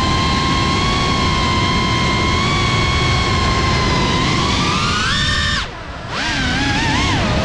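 GEPRC FPV cinewhoop drone's brushless motors and propellers whining at steady throttle. The pitch rises about four seconds in, drops away sharply for about half a second near six seconds, then spools back up and wavers up and down with the throttle.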